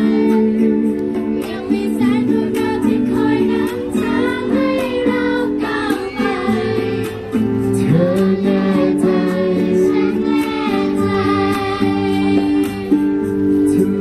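Live pop ballad from a band with singing over steady held chords, amplified through a concert PA.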